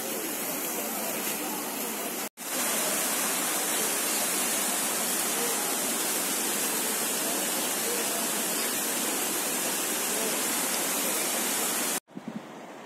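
Rows of fountain jets splashing in a steady rush of water, with murmuring voices of passers-by under it. After a cut a couple of seconds in, the rushing becomes louder and denser and holds steady, then drops away abruptly near the end.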